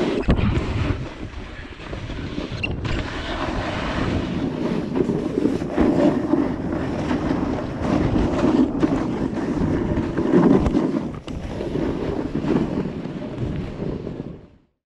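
Snowboard sliding and carving over packed snow, the edge scraping in repeated surges, with wind rushing over the action camera's microphone. Cuts off suddenly near the end.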